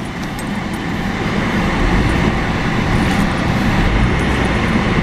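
Car engine running hard under throttle as the car pushes through snow and up into a snow-covered driveway. It builds over the first couple of seconds, then holds steady.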